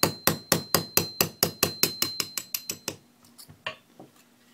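Small hammer rapping a pin punch in quick, even taps, about five a second, with a faint high ring over them, driving the locking block pin out of a Smith & Wesson M&P Shield pistol frame. The taps stop about three seconds in, and a few lighter clicks follow.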